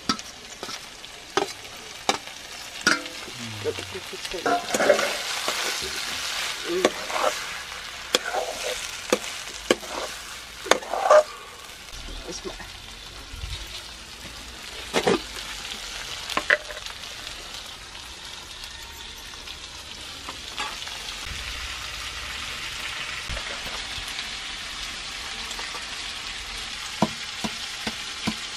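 Pork pieces sizzling as they fry in a metal wok, with a metal ladle clattering and scraping against the pan as they are stirred over roughly the first half; after that a steady, even sizzle.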